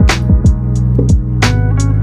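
Background music with a steady beat: drums and guitar.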